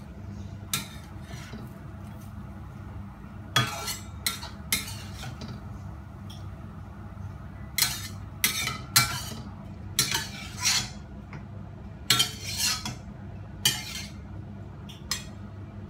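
Metal spatula scraping and clanking in a stainless-steel wok and knocking against a plate as cooked spinach is scooped out: about a dozen sharp clinks and scrapes at uneven intervals, over a steady low hum.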